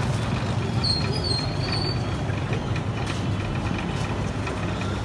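Steady low rumble of street traffic and engines, with a few faint knocks and a brief thin high squeak about a second in.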